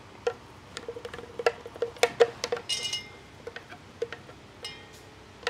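A metal spoon knocking and scraping against a steel vessel while scooping ground idli batter: scattered clicks and taps, with a brief bright metallic clink just under three seconds in.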